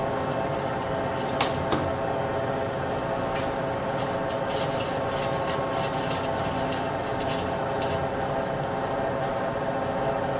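Metal lathe running with its power feed engaged, taking a very light facing cut across a top fuel funny car clutch pressure plate at a slow feed rate: a steady machine hum with several held tones, and a single sharp click about a second and a half in.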